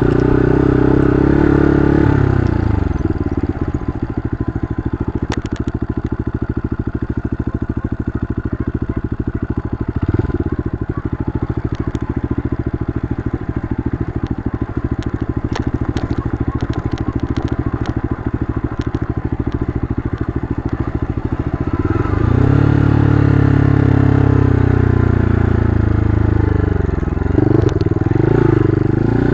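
Mitt scrambler motorcycle engine on an off-road ride: high revs at first, dropping after a couple of seconds to a low, pulsing run for most of the stretch, with a brief blip of throttle in the middle, then revving up again near the end. Scattered sharp clicks and clatter sound over the low-rev stretch.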